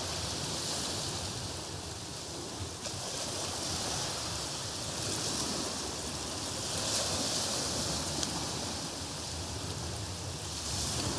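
Steady rushing noise that swells and eases slowly over several seconds, with a few faint ticks.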